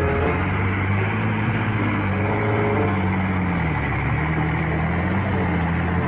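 Engine of a modified off-road 4x4 running under load as it ploughs through deep mud, over a steady rushing noise. The engine note dips about two thirds of the way in and rises again.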